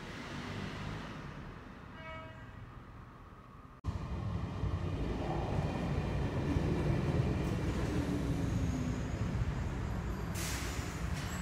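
Circumvesuviana commuter train pulling into the station. Its low rumble builds from about four seconds in, with a whine that falls in pitch as it slows, and a short burst of hiss near the end.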